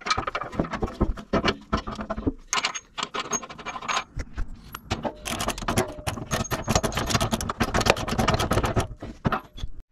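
Metal parts clinking and scraping as a bolt, spacer and washer are worked through the plow blade's pivot bracket. From about five seconds in, a socket ratchet clicks rapidly as the nut is run down.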